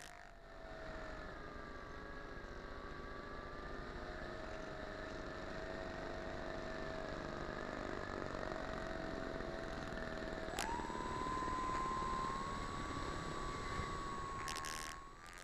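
Radio-controlled model airplane's motor running at a steady pitch, heard through a small onboard camera, then speeding up with a sudden jump in pitch and a click about ten seconds in.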